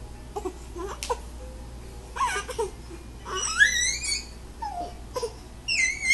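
Infant vocalizing: short babbles and whimpers, then a long rising high-pitched squeal a little past the middle and another high squeal near the end.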